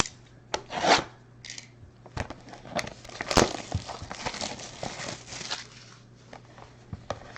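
Plastic wrapping crinkling and tearing as a sealed trading-card box is opened, with irregular rustles and sharp crackles, loudest a little after three seconds in.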